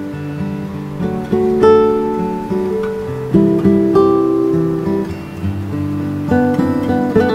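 Background music: an acoustic guitar playing plucked and strummed chords, with new notes struck every half second or so.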